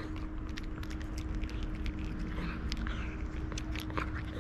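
Cat crunching dry kibble: an irregular run of short, sharp crunches and clicks over a steady low rumble.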